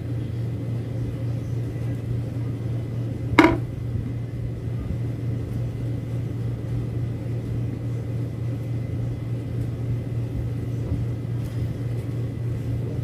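Steady low mechanical hum, like a motor or appliance running, with one short sharp sound that drops quickly in pitch about three and a half seconds in.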